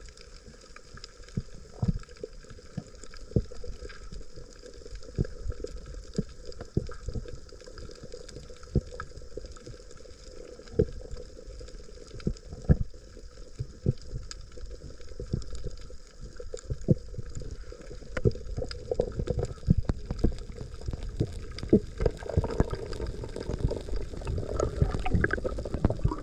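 Water sloshing and gurgling with frequent irregular clicks and knocks over a low rumble, growing busier and louder in the last few seconds.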